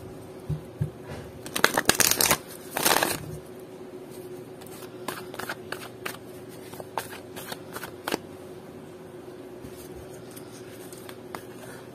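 A deck of oracle cards being shuffled by hand: two loud flurries of card flicks about two and three seconds in, then softer scattered slaps and taps of cards as the shuffling goes on.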